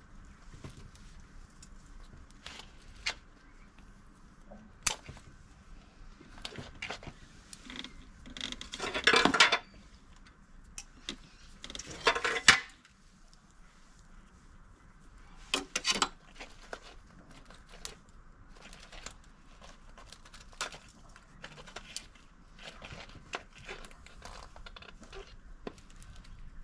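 Potting soil being worked around an azalea's roots in a shallow pot by hand and with a metal tool: scattered scrapes, clicks and gritty rustling, with a few louder scratchy bursts in the middle.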